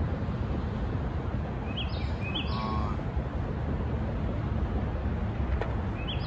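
Steady low outdoor background rumble, with a bird giving short rising chirps in two pairs, about two seconds in and again near the end.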